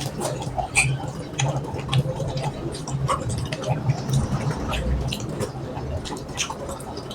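Close-up eating sounds of someone chewing rice and mutton curry: a quick, irregular run of wet clicks and smacks.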